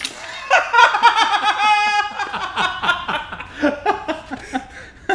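A man laughing in a long run of laughter that fades toward the end.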